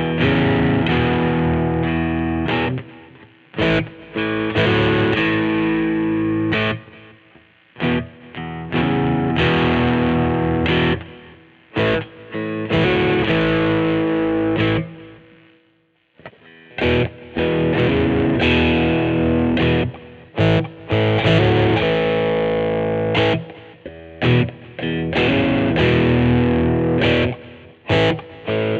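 2003 Godin SD 24 electric guitar played with distortion: chords held and left to ring for a second or two, then cut off short, with brief gaps between phrases and one short silence about halfway through.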